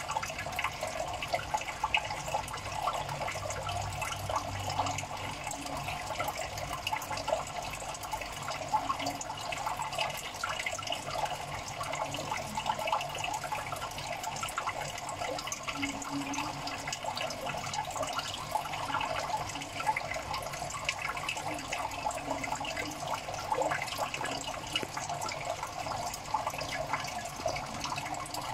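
Water in a crayfish tank running and bubbling steadily, a continuous wash with many small crackling pops.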